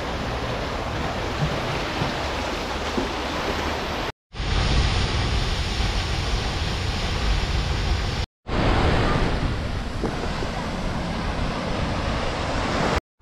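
Steady rushing water with a heavy low rumble. It cuts abruptly to silence for a moment twice, about four and eight seconds in, where separate clips are joined.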